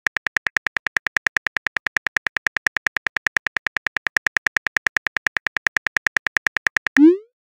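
Phone keyboard typing sound effect: rapid, even clicks, about eight a second. Near the end the clicks stop and a short rising swoosh follows as the message is sent.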